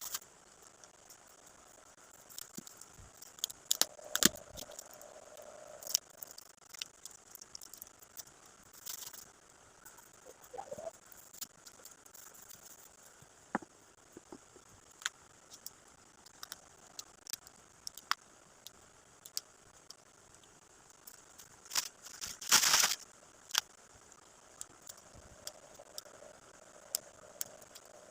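Gift packaging being handled and unwrapped: scattered light clicks and knocks with short bursts of crinkling, the loudest a burst of rustling about two-thirds of the way through.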